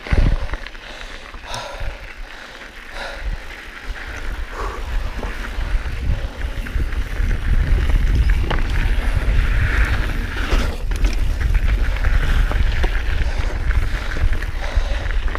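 Mountain bike being ridden over a rough trail: tyres on the dirt and scattered knocks and rattles from the bike, with a low wind rumble on the microphone that grows louder about halfway through as speed picks up.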